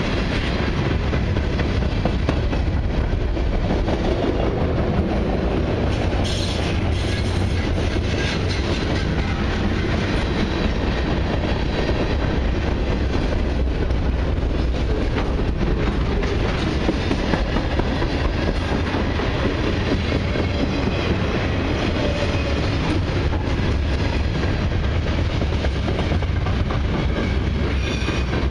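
Freight cars of a long mixed freight train (centerbeam lumber flatcars, boxcars and autoracks) rolling past close by: a steady rumble and clatter of steel wheels on the rails.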